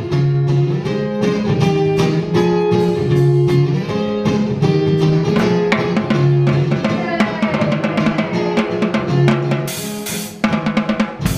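A band playing an unplugged rock song: strummed acoustic guitars over a drum beat, with a loud crash about ten seconds in.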